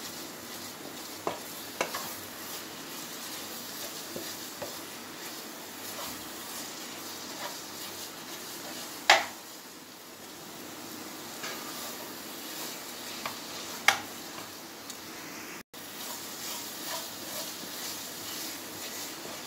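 Spatula stirring and scraping a thick coconut-and-sugar burfi mixture in a non-stick kadhai over the flame, with a low sizzle underneath. The spatula knocks against the pan now and then, loudest about nine seconds in and again near fourteen seconds.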